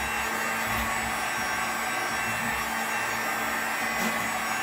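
Electric heat gun running steadily, its fan blowing hot air onto a glazed ceramic wall tile to loosen it for removal.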